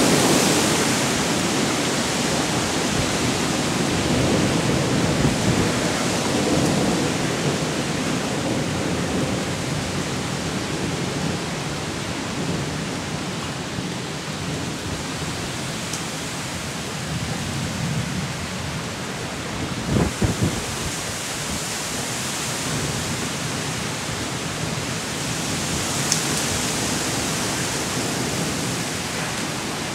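Heavy rain falling steadily during a thunderstorm, with thunder rumbling and dying away over the first several seconds. A short cluster of sharp knocks about two-thirds of the way through.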